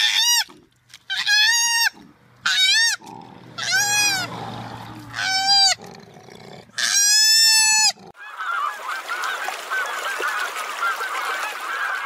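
Six loud, honk-like animal calls, each under a second and arching up then down in pitch. About eight seconds in they give way to a dense chatter of many overlapping calls, as from a flock of domestic geese.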